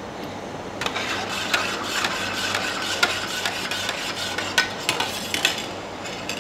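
Metal spoon stirring and scraping inside a stainless-steel electric jug of heating milk, with many small clinks against the metal sides; it starts about a second in and eases off near the end.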